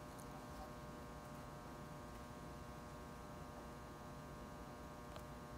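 Faint, steady electrical hum from the recording setup, with no other sound.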